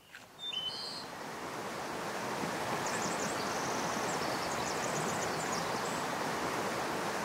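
Steady rushing of a shallow river running over rocks, swelling in over the first couple of seconds and then holding. A bird chirps briefly about half a second in, and high twittering comes through from about three to five seconds in.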